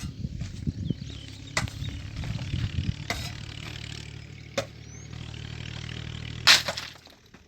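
Building-site sounds during brick-wall work: a steady low engine hum with a few sharp knocks about a second and a half apart, the loudest shortly before the hum stops near the end.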